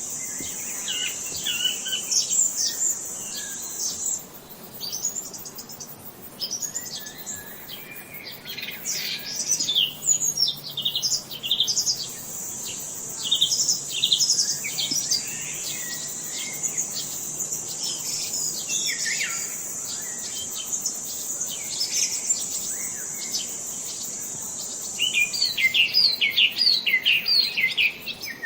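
Several wild birds chirping and calling in quick, overlapping bursts of short high notes. A steady high-pitched buzz runs under them for the first few seconds and again through the middle, and a fast run of repeated chirps comes near the end.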